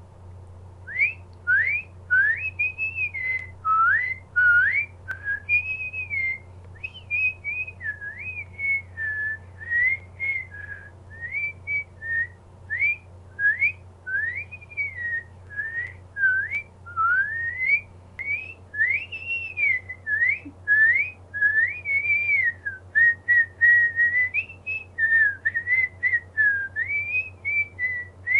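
A woman whistling a tune through pursed lips: a fast run of short notes that swoop up and down in pitch, with a steady low hum underneath.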